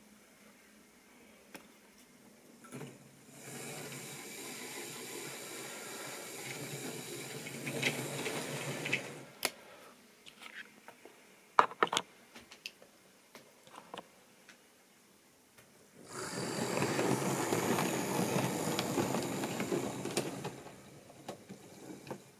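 Model train running on sectional track: a small locomotive motor with the wheels of the tank wagons rattling over the rails. It comes in two spells of steady running, about six and five seconds long, the second louder, with sharp clicks from the wheels and couplings between them.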